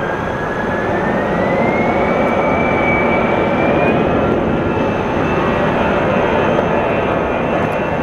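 Airbus A320-214's CFM56-5B turbofan engines spooling up for takeoff. A whine rises in pitch over a steady jet rush and levels off about four seconds in.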